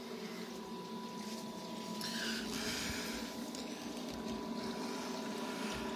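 Running saltwater reef aquarium: a steady hum of pumps with water moving, and a brief rise of hiss about two seconds in.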